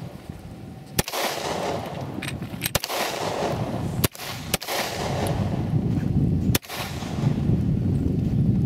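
Handgun shots, among them a 9mm H&K USP, about five or six sharp cracks fired at an uneven pace, with a steady low rumble between them.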